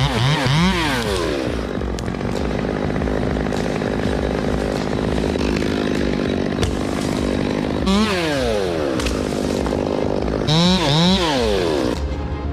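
Gas chainsaw running, with its engine revving up and down sharply at the start, again about eight seconds in and twice more near the end, and holding a steady speed in between. The saw sound gives way to a steady low hum just before the end.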